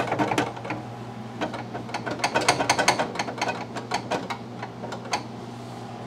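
Metal linkage rod of a Frigidaire ice bin's cubed/crushed ice door being worked back and forth by hand, rattling and clicking in its pivot brackets in quick runs, then going still about five seconds in. The pivots are freshly oiled to cure a squeak and are now less squeaky.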